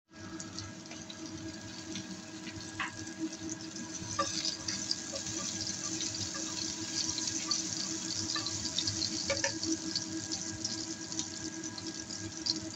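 Chopped scallions sizzling in hot oil in a nonstick frying pan: a steady crackling hiss with scattered pops, a few sharper taps of the spatula against the pan, and a steady low hum underneath.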